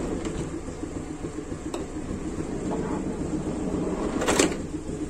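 Steady low rumble of a Daihatsu Espass engine running, with a few light clicks from the door handle and a short rush of sliding noise about four seconds in as the side door is moved by hand.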